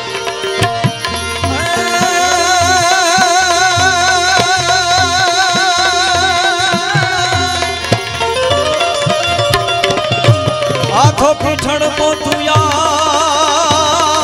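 Live Gujarati devotional folk music: tabla and dholak keep a steady beat under a long held sung note with vibrato. The held note breaks off about halfway through, then comes back after an upward slide near the end.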